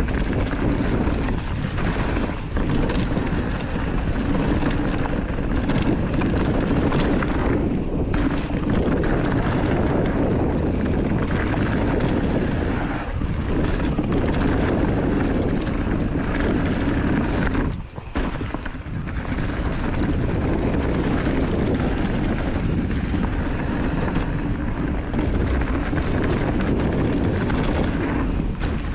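Steady rush of wind on the microphone mixed with tyre and frame rattle from a mountain bike riding down a trail, with a brief lull about eighteen seconds in.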